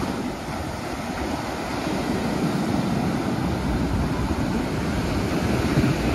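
Sea surf breaking and washing up a sandy beach, a steady rushing that grows a little louder about two seconds in, with wind rumbling on the microphone.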